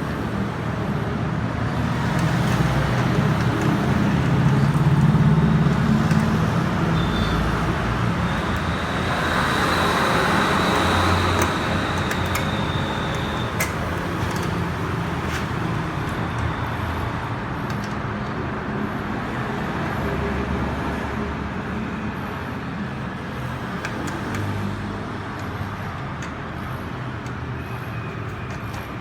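Generator set's Honda GX620 air-cooled V-twin petrol engine running steadily, loudest a few seconds in and slowly growing quieter over the second half.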